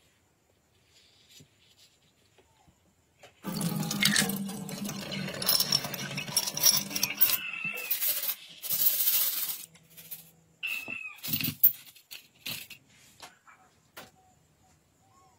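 Water running into a steel sink as small pistol parts and springs are rinsed in a mesh strainer, starting about three seconds in, with scattered metallic clinks of the parts near the end.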